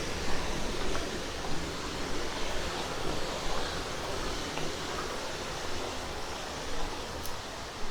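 Steady rushing of a mountain stream, an even hiss of flowing water, with a faint click near the end.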